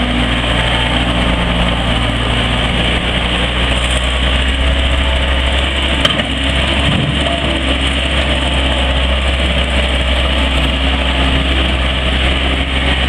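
Gehl 5620 skid steer's diesel engine running steadily, with a single brief click about six seconds in.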